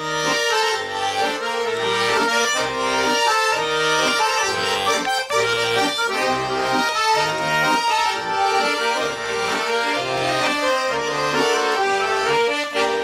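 Accordion playing an instrumental introduction to a Russian folk-style song: a melody over a rhythmic bass-and-chord accompaniment, with no singing yet.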